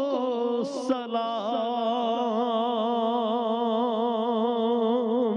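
A man singing an Urdu naat, a devotional song in praise of the Prophet, drawing out long held notes with a fast wavering, ornamented pitch.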